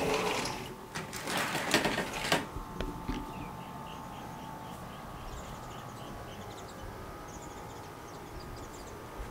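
A sliding glass door rolling open for about two seconds, then birds calling in the open air: a short note repeated about three times a second, with other high chirps above it.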